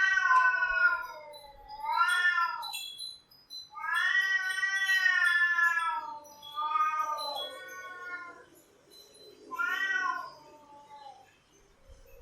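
Cats yowling (caterwauling): a series of about five long, wavering calls, the longest held for over two seconds, with short gaps between them.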